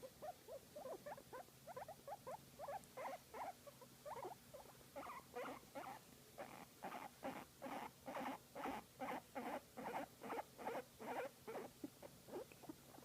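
Guinea pig making a long run of short, squeaky calls, about two to three a second, growing louder and more regular as it goes and stopping near the end.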